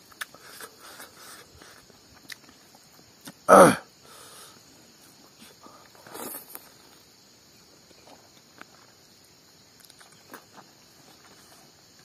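Steady high chirring of insects in the field, with faint soft clicks and rustles of fingers picking rice off a banana leaf. About three and a half seconds in comes one short, loud pitched call.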